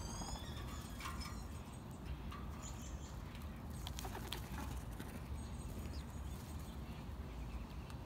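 Wingbeats of several large black birds landing and taking off, with a short flutter about four seconds in. Underneath are faint, scattered birdsong chirps and a low steady rumble.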